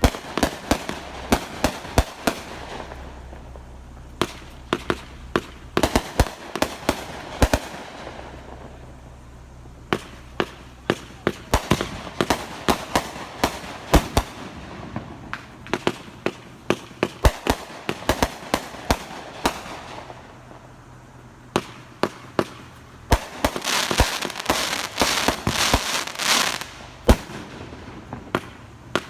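Consumer fireworks going off in quick succession: a steady string of sharp bangs and pops, several a second, with a denser stretch of crackling near the end.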